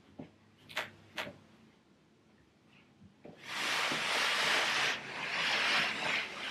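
Tall wooden cabinet being walked and slid across carpet by hand: two light knocks about a second in, then a loud, steady scraping rustle from about three and a half seconds on as the cabinet is dragged over the carpet.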